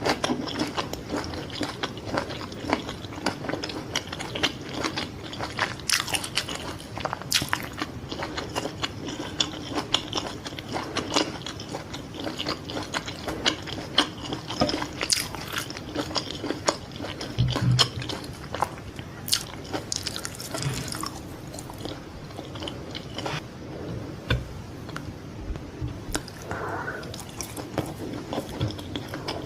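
Close-miked biting and chewing of fried fish balls: a dense, continuous run of small sharp mouth clicks.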